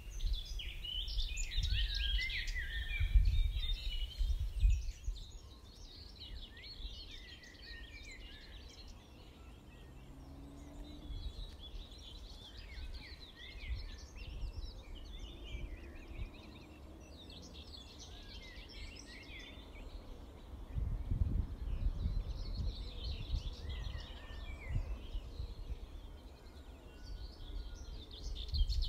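Dawn chorus: many birds singing and chirping at once, with wind gusting on the microphone in the first few seconds and again about twenty seconds in.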